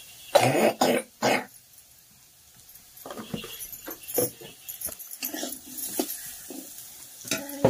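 A dog barks three times in quick succession about half a second in, followed by softer short knocks and scrapes.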